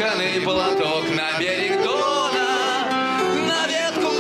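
A man's voice singing a slow, sad song, accompanied by acoustic guitar and piano.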